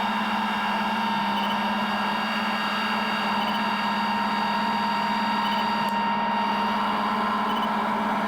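Combine harvester running steadily under harvest load: an even machine hum with a strong low tone and several higher whining tones that hold constant throughout.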